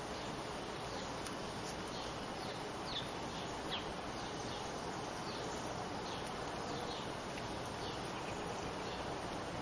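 Outdoor ambience: a steady background hiss with short, high, downward-sliding chirps repeating about every half second to a second.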